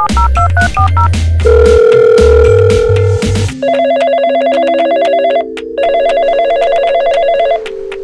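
Phone keypad beeps tapped out over background music with a beat. Then the toy telephone on a Robocar Poli toy police car rings twice with an electronic trill, each ring about two seconds long, over a slow tune of held notes.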